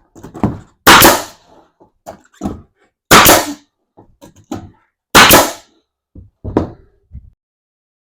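Nail gun firing into plywood: three loud shots about two seconds apart, with lighter knocks of the gun and board being handled between them.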